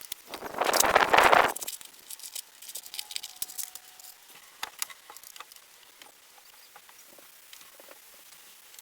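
Hand work on 2x6 lumber and tools: a loud rattling scrape lasting about a second, starting about half a second in, then scattered light taps and clicks of handling.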